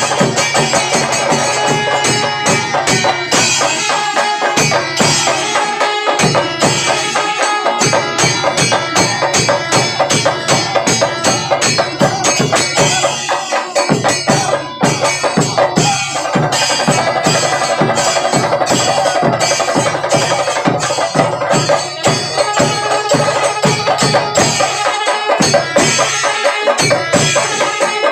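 Kerala temple percussion ensemble, chenda melam: chenda drums and ilathalam cymbals beating a fast, dense, unbroken rhythm, with a sustained pitched line sounding over the drumming.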